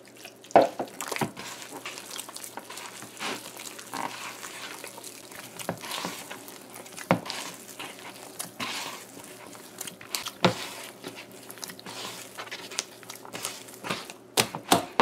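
A bare hand squelching and slapping through a wet batter of flour and ground split peas in a bowl, in irregular strokes that turn near the end into a fast, even run of slaps as the batter is beaten to knock the air out of it.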